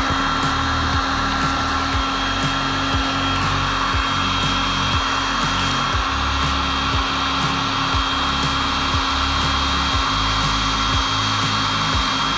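Heat gun blowing steadily with a thin whine, shrinking tubing over wire splices. Background music with a steady beat plays under it.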